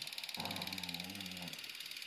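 A dog giving one low, wavering vocal sound, a growl or grumble about a second long.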